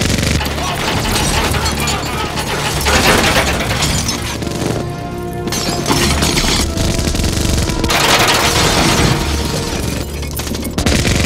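Rapid, continuous minigun fire hitting police cars, with glass shattering and bullet impacts on metal, over film score music. The firing breaks off briefly about halfway.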